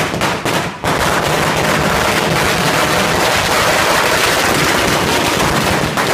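A string of firecrackers bursting on the road, first a few separate bangs and then, from about a second in, a rapid unbroken crackle of loud bangs like machine-gun fire.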